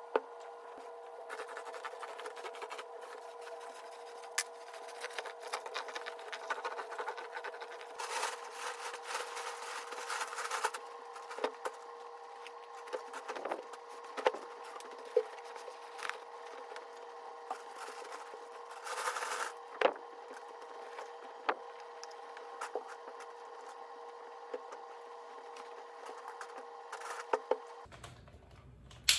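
A steady machine-like hum with scattered clicks and knocks and a few brief rustling stretches; the hum cuts off near the end.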